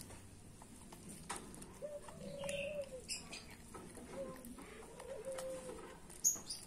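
Two long, level animal calls, each about a second long, over scattered small clicks and ticks.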